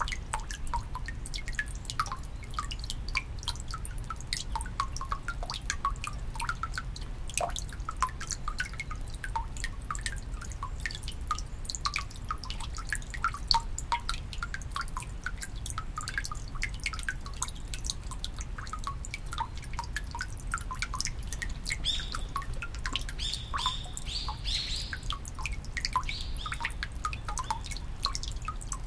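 Water falling into the stone basin of a Shinto shrine's temizuya (purification fountain): a steady, dense patter of drops and splashes. A small bird chirps a few times between about 22 and 26 seconds in.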